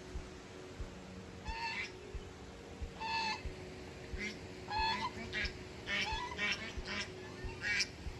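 A large bird honking: about nine short, harsh calls, coming more often in the second half.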